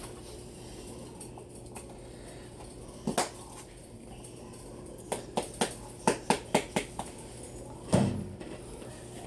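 A series of light clicks and taps from small hard objects being handled: two about three seconds in, a quick run of about ten between five and seven seconds in, and a single louder knock near the end.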